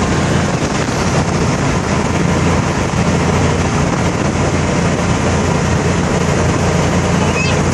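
Open golf cart driving along a paved street: a steady low motor hum with tyre and road noise and wind rushing past.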